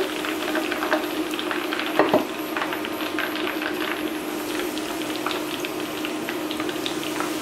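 Breaded chicken skewers deep-frying in hot oil in a small steel pot: a steady crackling sizzle full of tiny pops. A short knock about two seconds in, over a steady low hum.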